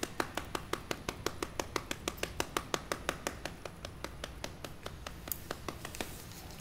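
Bonobo lip-smacking with its lips pressed to the wire mesh close to the microphone: a quick, even run of wet clicks, about six or seven a second, that fades out about five seconds in.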